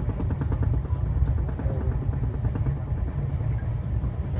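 Steady low rumble of a moving passenger train.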